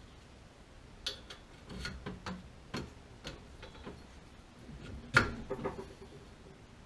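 Scattered clicks and knocks of hands working with tools and parts, about a dozen irregular strikes, the loudest a sharp knock about five seconds in.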